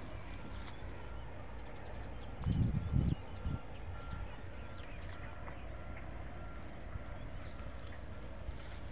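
Open-field ambience: a steady low rumble, with a few louder muffled thumps about two and a half seconds in and a faint high chirp repeating evenly, about twice a second.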